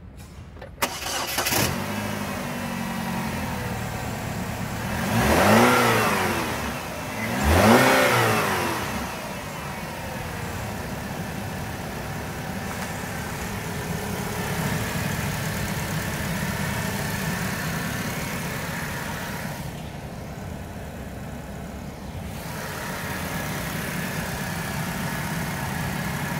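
Holden Captiva's Ecotec engine starting about a second in, then revved twice, each rev rising and falling back, before settling into a steady idle.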